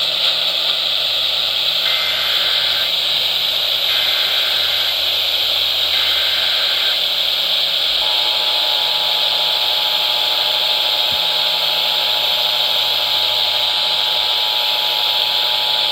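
Emergency Alert System transmission received on a radio with heavy hiss. It opens with three one-second bursts of the warbling SAME data header, about two seconds apart. About eight seconds in the steady two-tone EAS attention signal starts and holds, marking that a warning message is about to be read.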